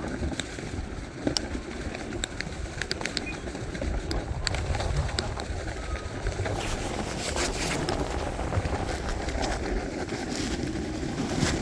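A snowboard sliding over snow, with wind rumbling on the microphone and scattered light clicks. The board gives louder hissing scrapes about seven seconds in and again near the end.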